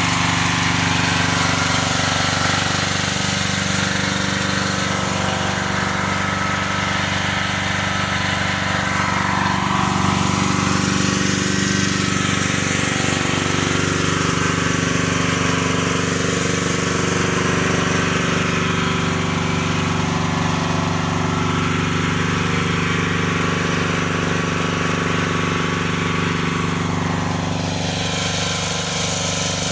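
Portable generator engine running steadily with an even, unbroken drone.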